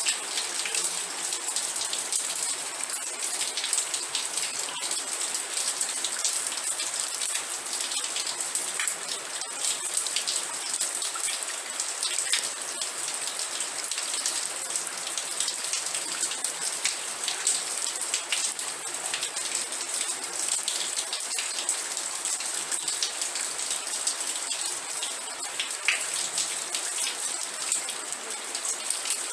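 Steady rain falling, a continuous hiss of many drops with fine individual ticks of drops on a surface.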